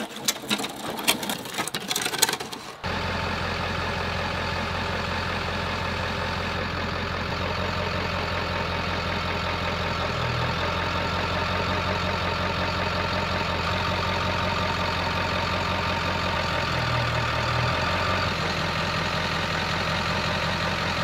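A few scattered clicks and knocks, then from about three seconds in a Ford F-350's 7.3 Powerstroke diesel V8 running steadily at low speed as the truck backs slowly, swelling slightly twice.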